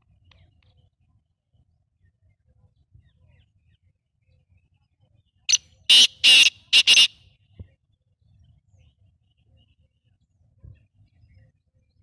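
Caged black francolin calling: one loud call of four harsh notes in quick succession, about halfway through, lasting about a second and a half.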